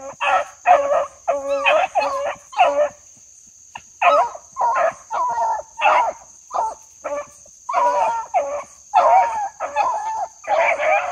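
Beagles baying as they run a rabbit: short repeated cries, about two a second, with a brief pause about three seconds in. A steady high insect buzz sounds behind them.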